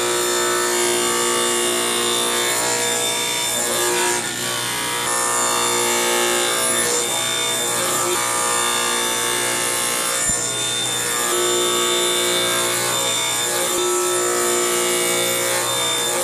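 Table saw running and crosscutting thin strips off small pieces of eastern red cedar on a crosscut sled, with background music over it.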